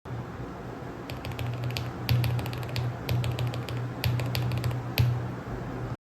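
Background music over a run of quick, irregular plastic clicks from keycaps being pressed onto a mechanical keyboard's switches.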